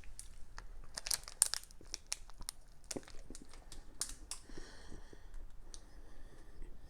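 Plastic protein-bar wrapper crinkling and crackling as it is handled and pulled back, with many short crackles over the first four seconds, then quieter.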